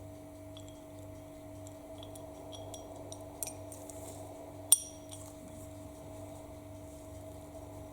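Small metal parts being handled: a few light clicks and taps, then one sharp metallic clink with a brief ring a little under five seconds in, over a steady low hum.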